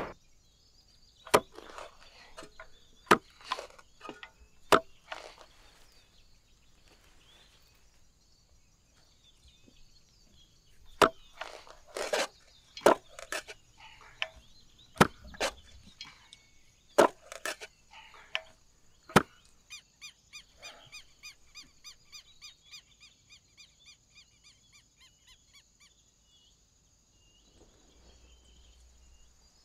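A digging tool chopping into hard ground. First come single sharp strikes a second or two apart, then a quicker flurry of heavier blows in the middle. After the blows stop, a run of evenly spaced ticks, about two a second, fades away over a steady high whine.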